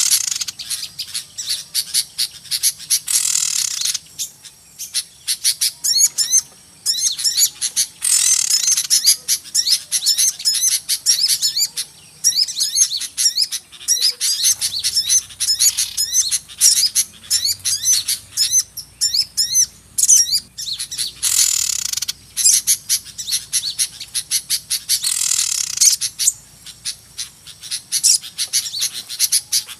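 Bird-lure recording of many small birds calling at once: rapid high-pitched chirps and chatter without a break, rising to louder bursts of massed chattering every few seconds.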